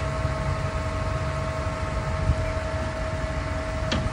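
2009 GMC C5500 boom truck's Duramax diesel engine running, with a steady whine over its low rumble. A short click comes near the end.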